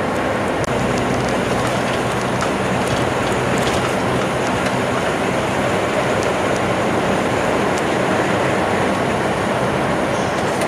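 Steady running noise inside a tractor-trailer's cab at highway speed on a wet road: the diesel engine's drone under a constant hiss and rumble of tyres on wet pavement.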